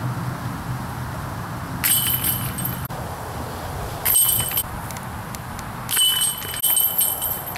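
Disc golf basket chains jingling as discs strike them, three times about two seconds apart, the last rattle the longest, over a steady low rumble.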